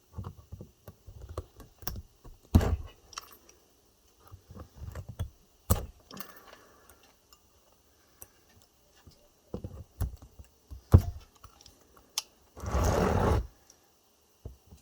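Pliers clicking, knocking and scraping on a battery pack's cells as the strips stuck to the cells are gripped and cut away. Several sharp snaps stand out, and there is a harsher rasping noise just under a second long near the end.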